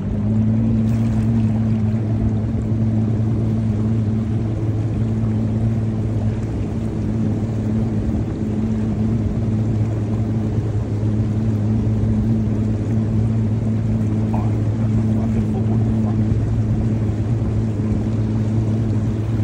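Outboard motor of a moving fishing boat running at a steady speed as a low, even drone, with water rushing along the hull.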